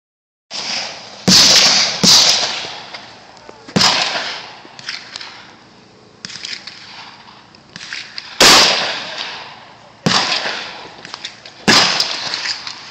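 Gunshots: five loud shots at uneven intervals, each trailing off in a long echo, with quieter shots in between.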